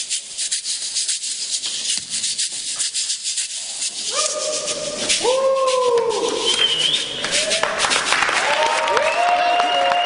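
Small handheld percussion played in a fast, scratchy shaking rhythm, then whoops and cheers from an audience about four seconds in, with applause building near the end as the song finishes.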